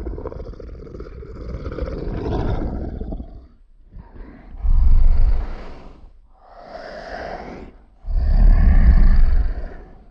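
A series of four loud, rough animal calls from a sound-effects compilation, heavy in low rumble: a long one of about three seconds, then three shorter ones of a second or two each with short pauses between.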